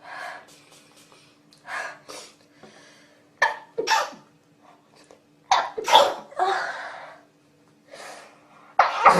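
A person sneezing repeatedly in a fit: about five sharp sneezes, some in quick pairs, with breathy in-breaths between them.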